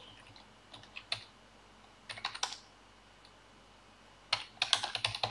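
Typing on a computer keyboard: short bursts of keystrokes about a second and two seconds in, then a quicker run of keys near the end.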